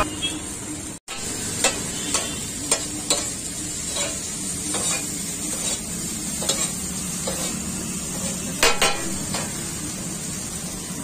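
Chow mein noodles sizzling on a large flat griddle as a metal spatula stirs and tosses them, with sharp scrapes and clinks of the spatula on the griddle at irregular intervals through the frying hiss.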